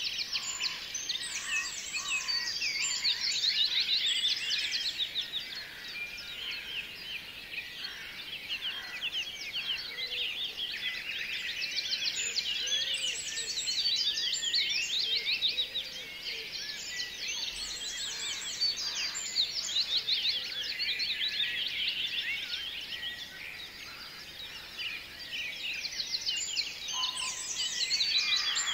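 Dense chorus of many small birds chirping and trilling at high pitch, swelling and fading in waves every several seconds.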